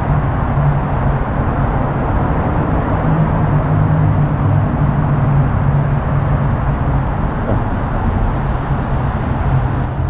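Steady low rumble of heavy Interstate 5 freeway traffic running beneath the park, with no single vehicle standing out.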